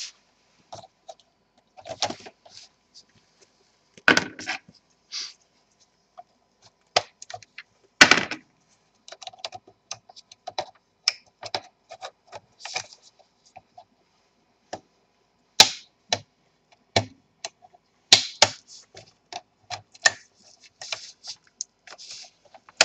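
Plastic snap clips of an Alienware M14x laptop's top cover clicking and popping loose as a plastic pry tool works along the seam: irregular small clicks and scrapes with several louder snaps.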